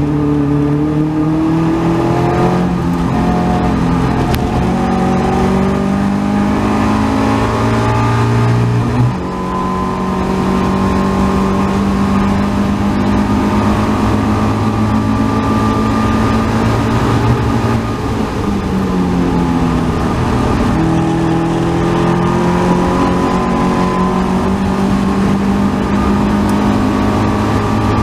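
Caterham 270R's Ford Sigma four-cylinder engine under hard acceleration, heard from the open cockpit. It climbs in pitch through the revs, breaks off and drops for a gear change about nine seconds in, dips again briefly around eighteen seconds, then pulls on at high revs.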